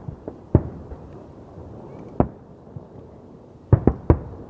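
Fireworks going off: a scattering of sharp bangs with a few fainter pops between them, three bangs in quick succession near the end.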